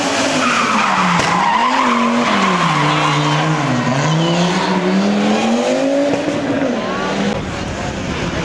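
Rally car engine revving, its pitch falling and rising repeatedly with throttle and gear changes, with tyres squealing in the first couple of seconds. The engine note drops away near the end.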